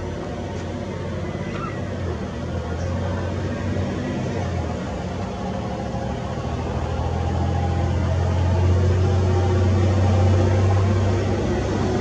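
Low, steady engine hum of a motor vehicle, growing louder from about halfway through, over a constant wash of city background noise.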